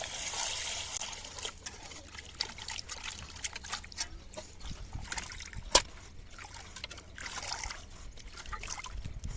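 Cut chicken pieces being rinsed by hand in water: trickling, splashing and sloshing, with small clicks and one sharp knock a little past halfway.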